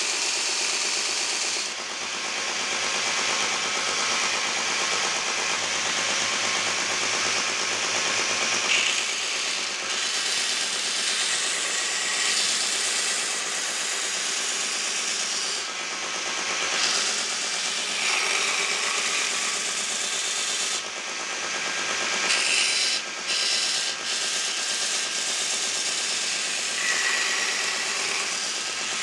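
Homemade belt grinder running, its abrasive belt sanding the wooden handle scales of a knife pressed against the platen: a steady, loud, hissing grind, with a few short dips now and then.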